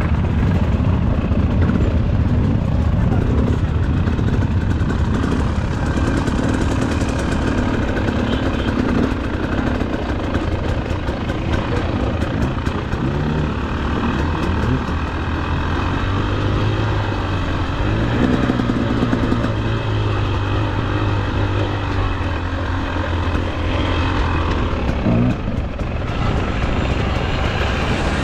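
Enduro motorcycle engine running, its pitch rising and falling as the throttle is worked, over a steady low drone.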